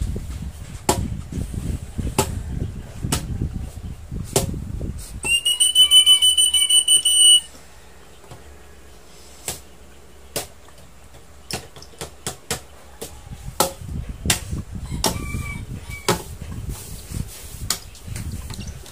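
Handling and rustling noises with many sharp clicks while lovebird chicks are hand-fed. A loud, high, steady whistle-like tone cuts in about five seconds in and lasts about two seconds.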